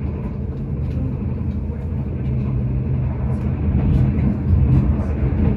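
Intercity train running: a steady low rumble and hum, with light ticks over it, growing a little louder near the end.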